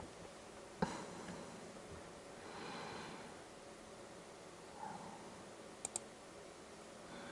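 Quiet room tone with a single soft knock about a second in, a breath around the middle, and two quick, sharp clicks close together near the end: a laptop's pointer button being clicked.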